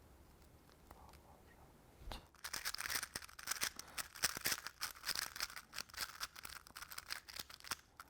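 Speed cube being turned fast: a dense run of quick plastic clicks and clacks as the layers turn, starting about two seconds in.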